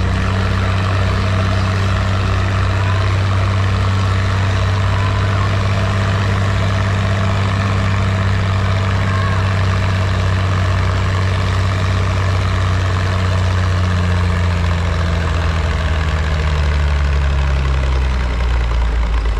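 Farm tractor engine idling steadily while hitched to the pulling sled before a pull. Its pitch eases down slightly in the last few seconds.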